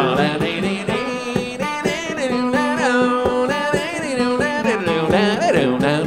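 Acoustic guitar strummed steadily under a man's wordless, wavering vocal line.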